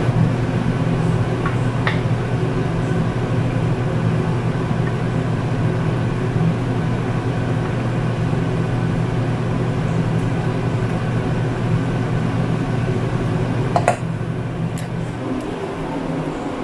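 Steady hum of a kitchen range hood's exhaust fan running, with a faint click about two seconds in and a sharper knock about fourteen seconds in.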